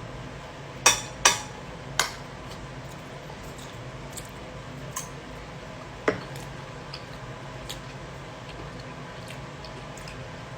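Cutlery clinking and scraping on dishware while eating: three sharp clinks in the first two seconds and one more about six seconds in, then only faint ticks over a steady low hum.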